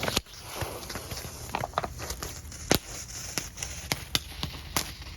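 Novelty aircraft-carrier firework spraying sparks with a steady hiss and scattered sharp pops, the loudest right at the start. The pieces meant to fly off only spray sparks, which the lighter takes for a dud.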